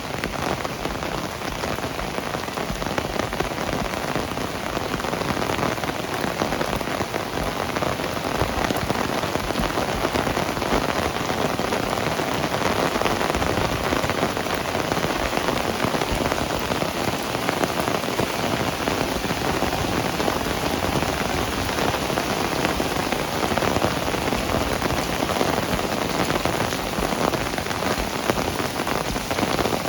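Heavy rain falling steadily, a dense, even patter of drops that grows a little heavier after several seconds.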